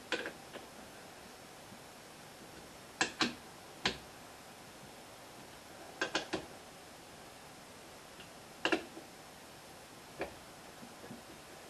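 Hand tool clinking against the steel screws and body of a lathe chuck while the screws are given a final tightening: sharp metallic clicks in small clusters of one to three, a few seconds apart.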